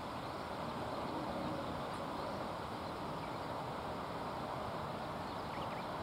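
Steady outdoor background noise, an even rush with no distinct event, and a couple of faint short high sounds near the end.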